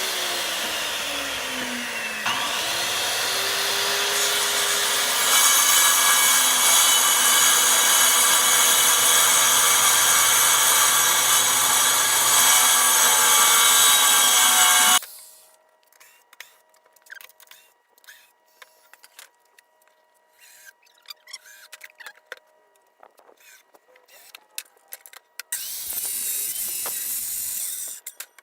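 Circular saw running and cutting through the side of a wooden box along a rip guide; the motor's pitch drops and recovers about two seconds in, then it cuts louder and steadily until it stops suddenly about halfway through. After a stretch of small handling clicks, a shorter run of the power tool comes near the end.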